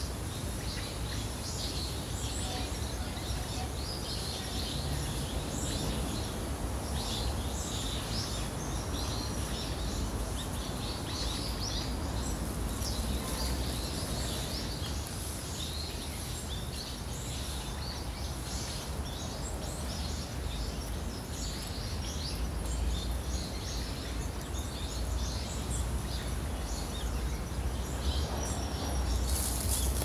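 Small waterfall splashing over rocks, a steady rush of water, with many small birds chirping throughout above it. Near the end the water sound grows a little louder and brighter.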